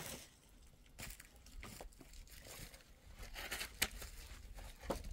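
Footsteps crunching and scraping on loose stony ground, with scattered clicks of small stones and one sharp click about four seconds in, over a low rumble.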